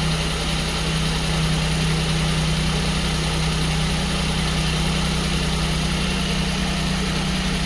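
Maruti Suzuki Alto's three-cylinder petrol engine idling steadily with the AC compressor engaged. The newly fitted, freshly tensioned AC belt runs without any squeal, a sign the belt noise is cured.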